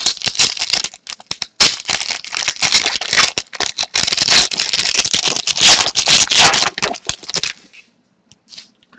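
Trading cards and their packaging being handled: a dense run of rustling, crinkling and small snaps that stops about seven and a half seconds in.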